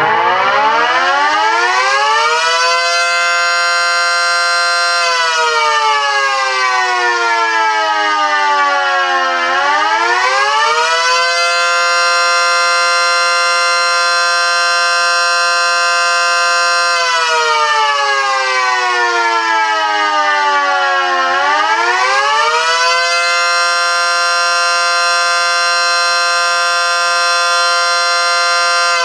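Mini ACA Screamer dual-tone electromechanical siren running, sounding a chord of two tones together. It winds up at the start, holds the pitch steady for a few seconds, then winds down slowly and winds quickly back up, twice over, and begins winding down again near the end: a slow wail.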